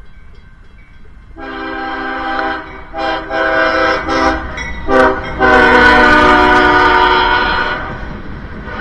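Freight locomotive's air horn sounding a chord of several tones in a series of blasts: a long one about a second and a half in, a few shorter ones, then a long final blast of over two seconds that fades near the end. A low rumble of the approaching train runs underneath.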